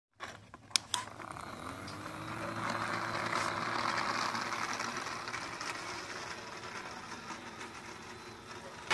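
Small electric motor spinning the plastic propeller of a homemade bottle-and-cardboard toy airplane, a steady whirring hum with a faint whine that rises a little as it gets going. Two sharp clicks come about a second in; the whirr grows louder towards the middle, then fades as the toy runs off across the floor.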